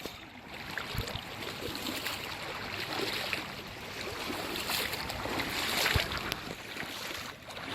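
Water lapping and sloshing.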